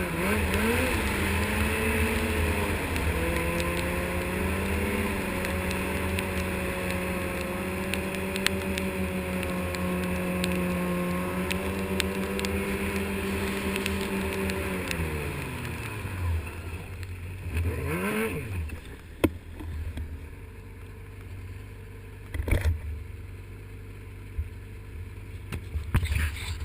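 Snowmobile engine rising to a steady pull under way, then dropping off about fifteen seconds in as the sled slows. It gives one quick rev and settles to a quieter idle, with a few sharp knocks near the end.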